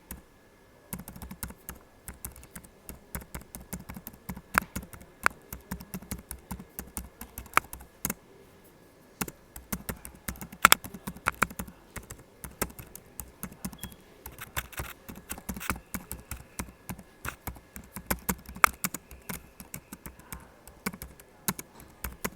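Laptop keyboard typing: fast, irregular key clicks in quick runs, with a few short pauses.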